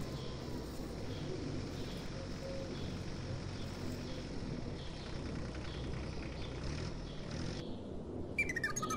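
Steady outdoor background noise with a low hum and faint high chirps about twice a second. Guitar music comes in near the end.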